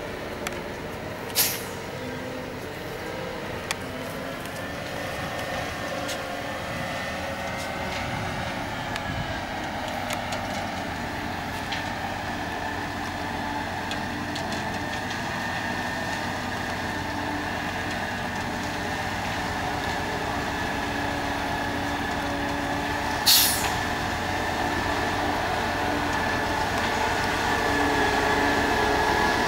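Concrete mixer trucks' diesel engines running at low speed, slowly growing louder as the trucks approach. Two short air-brake hisses, one about a second in and a louder one near the end.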